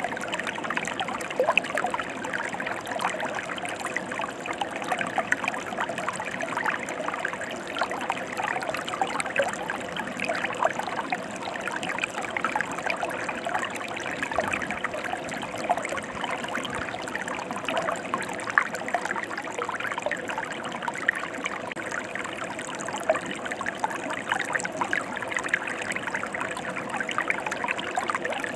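Mountain stream running steadily, a dense, even babble of small splashes and trickles.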